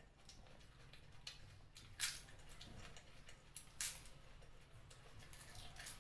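Close-up eating sounds from chicken feet curry: faint wet chewing and sucking, with two sharp clicks about two and four seconds in.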